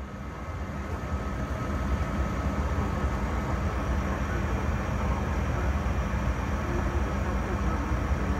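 Steady in-flight cabin noise of a jet airliner, engine and airflow rumble heaviest in the low end, fading in over the first couple of seconds, with a faint steady high whine running through it.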